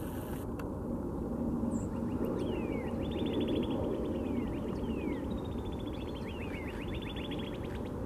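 Northern cardinal singing: falling whistled slurs and quick runs of short repeated whistled notes, beginning about two and a half seconds in and going on until near the end, over a steady low rumble.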